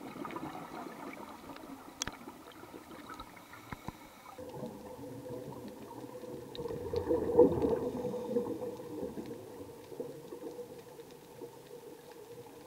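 Scuba diver's breathing heard underwater through the camera housing: a muffled bubbling from the regulator, rising to a louder burst of exhaled bubbles lasting about two seconds near the middle, with scattered small clicks.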